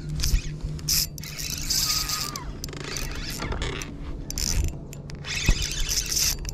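Fishing reel being cranked in several short spells, a clicking, ratcheting rattle of its gears.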